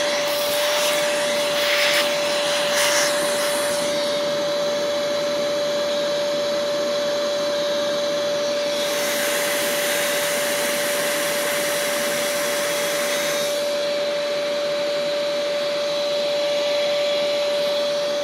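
Shop-vac running steadily, with a constant motor whine over the rush of air. In the first few seconds an irregular scratchy crackle joins it as sand is sucked up from between the dahlia tubers. From about nine seconds in, the airflow turns hissier for a few seconds.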